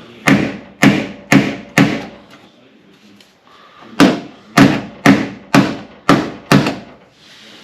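Hammer tapping the sheet-metal replacement panel on a 2002 Ford F350 cab, working the edge in so it lines up with the body before welding. Light blows, each with a short ring: four about half a second apart, a pause of about two seconds, then six more at the same pace.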